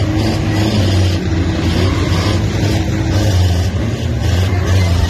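Loud, steady engine noise from the racing vehicles on a banger racing track, the pitch wavering slightly as they rev.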